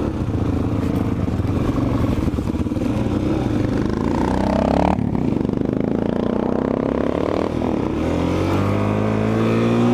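Suzuki DR-Z400E's single-cylinder four-stroke engine pulling hard under acceleration. Its pitch climbs, breaks at an upshift about five seconds in, climbs again and shifts once more about seven and a half seconds in.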